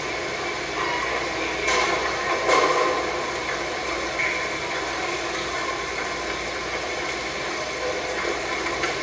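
Table tennis ball clicking sharply off paddle and table a few times, about two seconds in and again near the end, over the steady hiss and hum of an old camcorder recording.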